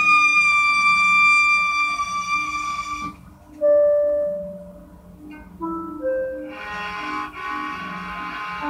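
Violin playing: one long held high note for about three seconds, then a few short separate notes and a busier passage near the end, over a low pulsing accompaniment.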